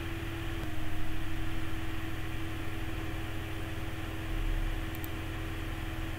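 Steady background hum and hiss with a faint constant tone, with no distinct events: the noise floor of the narrator's microphone and room during a pause in the narration.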